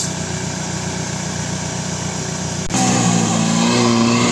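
Off-road 4x4 vehicle engine running steadily. About two-thirds of the way through there is an abrupt cut to a louder engine sound that shifts in pitch.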